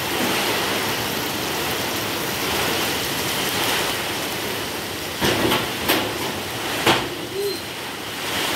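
Steady hiss of heavy rain, with a few sharp knocks and clatters about five to seven seconds in.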